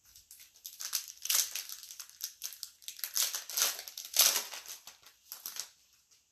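Crinkling and crackling of a Select baseball card pack wrapper as it is handled and opened to get the cards out. It comes in irregular bursts, loudest about a second in and again a little past four seconds, and dies away near the end.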